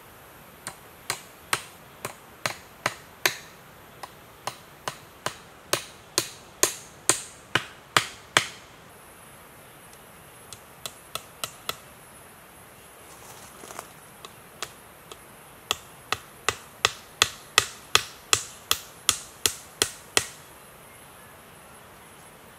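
A hand tool striking wood in runs of steady, sharp blows, about two to three a second. The first run builds louder over about eight seconds, then after a few scattered strikes and a pause a second, faster run follows.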